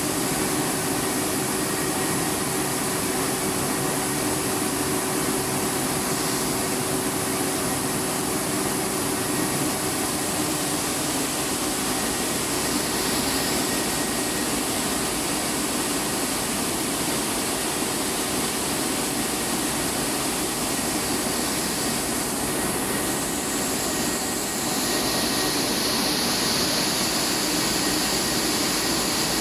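Rice milling plant machinery running steadily: a continuous hum of motors and blowers under a dense hiss of grain and air. About twenty-five seconds in, the hiss grows brighter and a little louder.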